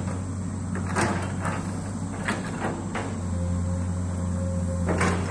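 Komatsu amphibious excavator running steadily while it digs, with a higher whine joining in for a second or so about three seconds in and several short clunks as the arm and bucket work.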